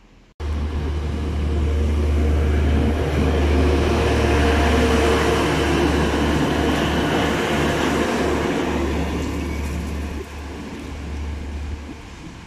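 DB Class 612 diesel multiple unit running past, a loud low diesel engine drone mixed with wheel and rail noise. It cuts in abruptly just after the start and fades over the last couple of seconds as the train moves away.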